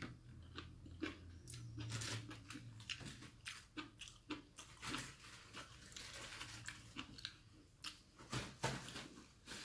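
A person chewing food close to the microphone, with soft, irregular wet mouth clicks and smacks.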